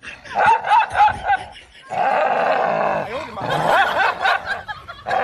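Dog snarling and barking in quick repeated bursts at its own reflection in a mirror, an aggressive display, with a held snarl for about a second midway.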